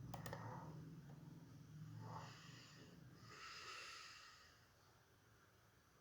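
Near silence: faint breathing close to the microphone, two soft breaths, with a single click just after the start.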